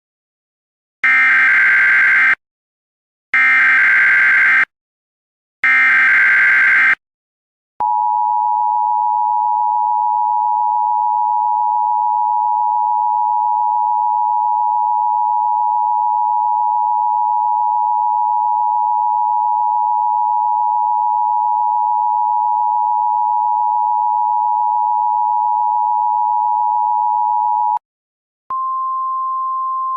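Emergency Alert System tones: the SAME header sent three times as bursts of digital data tones about a second apart, then the two-tone attention signal held steady for about twenty seconds. It cuts off, and after a brief gap a single, slightly higher steady tone begins.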